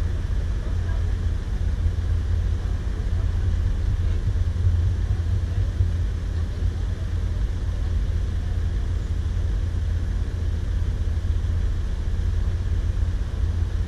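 Steady low rumble of a car driving, with no changes in pitch or level.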